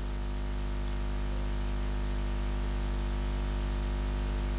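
Steady electrical mains hum on the recording: a low buzz with a ladder of overtones over a faint hiss, growing slightly louder over the first second or so.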